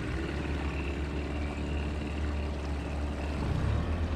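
Small outboard motors on aluminium tinnies running steadily, a low even hum.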